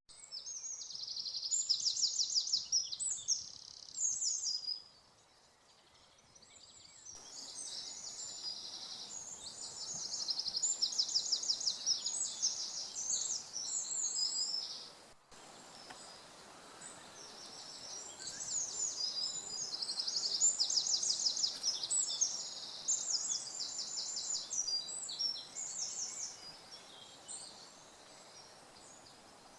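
Woodland songbirds singing: high, rapid trilled song phrases in three long bouts, over a faint steady background hiss.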